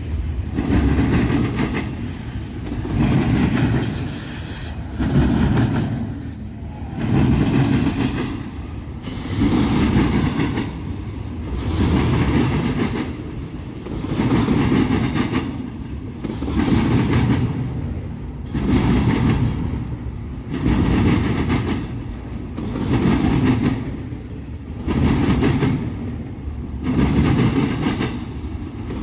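Long CSX intermodal freight train rolling past. Its wheels clatter over the rail joints and crossing in a steady pulse that swells about every two seconds as each car goes by.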